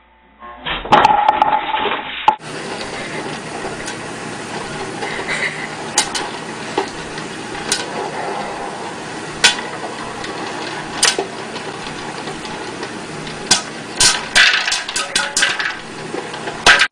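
An electric popcorn popper with a clear plastic dome running, popping corn: single kernels pop every second or two, then pop in a quick flurry near the end. Before it, about a second in, a brief loud clatter.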